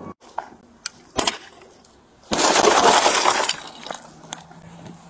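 A car's side window of tempered safety glass being broken in. A few sharp knocks come first, then a bit over two seconds in the glass shatters with a loud crash and crumbling that lasts about a second, followed by scattered tinkling of fragments.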